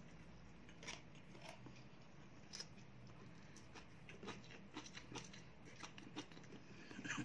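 A man chewing crunchy leafy greens: faint, irregular crunches and small clicks, over a low steady hum.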